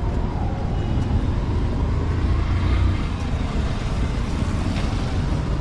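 Street traffic: a steady low rumble of passing road vehicles, swelling a little about halfway through.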